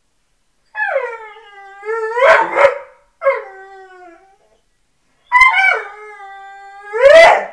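American Staffordshire terrier howling and whining in three long drawn-out calls, each sliding down in pitch and then rising to a louder, higher cry; the first and last rise to the loudest cries. She is howling for a frisbee she wants.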